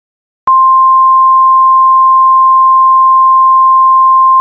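A single steady electronic sine tone a little above 1 kHz, very loud, starting about half a second in and holding without change: the alert tone of a mock Emergency Alert System broadcast.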